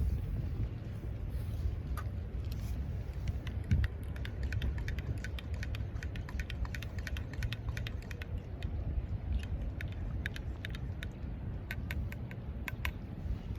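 Wood campfire crackling, with scattered sharp pops and snaps that come more often in the second half, over a steady low rumble of wind on the microphone.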